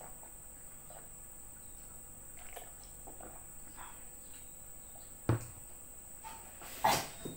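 Crickets or other insects trilling steadily on one high note in the background. A single sharp knock about five seconds in and a louder clatter near the end come from a plastic drinking cup and dishes being handled on the table.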